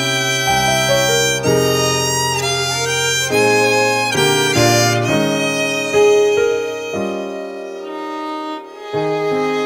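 Two violins playing a hymn medley in harmony, over a low piano accompaniment. Near the end the low notes drop out and the playing softens briefly, then the accompaniment comes back in.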